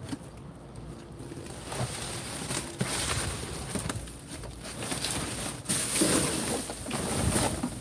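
Cardboard boxes scraping and shifting, then a plastic trash bag crinkling and rustling as it is handled during a dumpster rummage, loudest in the last couple of seconds.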